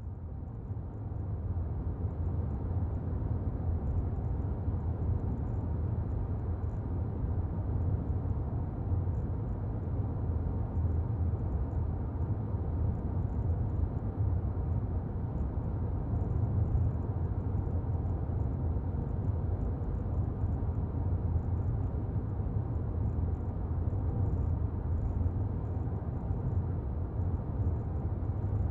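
Car on the move, with a steady low road-and-engine rumble that rises in over the first second or so.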